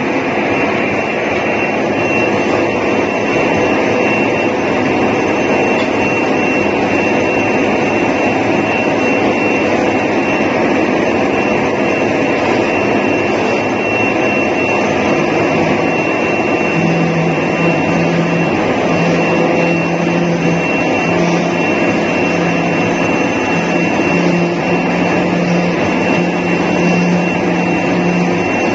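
Loud, steady rushing of a CNC carton sample cutter's high-pressure vacuum blower, which holds the board on the table, with a steady high whine. In the second half a low hum keeps starting and stopping as the machine works.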